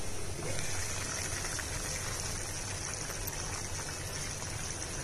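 Chicken curry simmering in a pan on a low flame: a steady bubbling hiss with a fine crackle.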